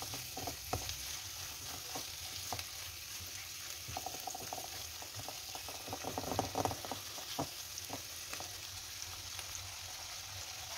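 Diced chicken breast and onions sizzling in a nonstick frying pan with salt, pepper and turmeric, frying to release the spices' aroma, while a spatula stirs and scrapes them. The scrapes and taps bunch up in the middle and stop near the end, and the sizzling goes on.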